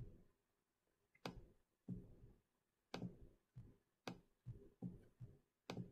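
Faint computer mouse clicks: about nine short clicks at irregular intervals over near silence.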